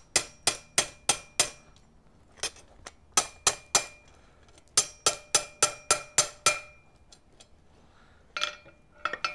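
Ball-pein hammer tapping on a pair of blacksmith's tongs, sharp ringing metal-on-metal clinks about three a second in three runs with short pauses. He is hammering the tongs to close their jaws, which aren't gripping the bar tightly enough.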